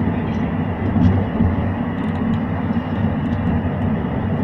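Steady running noise inside the cabin of a SkyWay Unibus rail vehicle in motion: a continuous low rumble with a faint steady tone above it.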